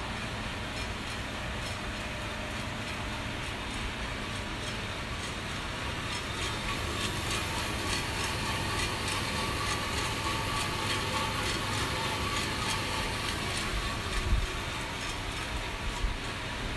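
Vina Roaster drum coffee roaster running: a steady mechanical whir of motors and fans with a faint rapid ticking, and a single knock near the end.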